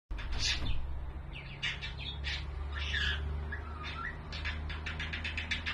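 Pet budgerigar chirping and chattering in short high notes, with a quick run of rapid chirps near the end, over a low steady hum.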